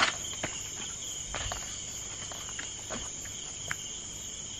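Steady high-pitched trilling of an insect chorus, crickets, with a few scattered faint taps and clicks, the sharpest right at the start.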